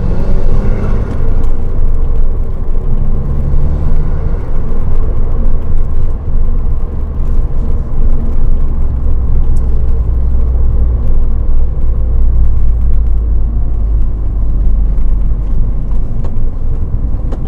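Subaru WRX's turbocharged flat-four running through an Invidia Q300 cat-back exhaust with a steady low rumble. The engine revs up about a second in.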